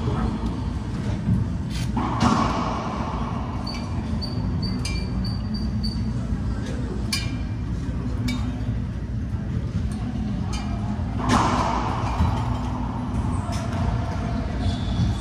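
Racquetball rally: sharp smacks of the ball off racquets and the court walls, a dozen or so at irregular intervals, echoing in the enclosed court over a steady low hum.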